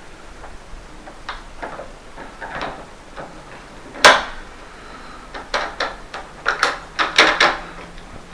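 Hard clicks and knocks of a lever handle, its spring and square spindle being pushed into a mortice lock in a door: a few light taps, one sharp clack about four seconds in, then a quick run of clicks.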